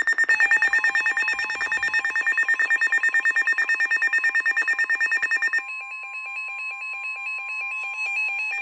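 Emergency Alert System attention tones announcing a severe thunderstorm warning: a loud electronic alarm of several tones pulsing rapidly. About five and a half seconds in it drops in level and changes pattern, and a steady single tone sounds beneath the pulsing.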